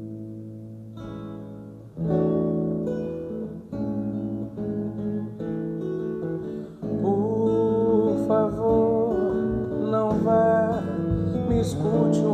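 Instrumental song intro: acoustic guitar chords over a sustained chord, fuller from about two seconds in, with a melody line joining about halfway through.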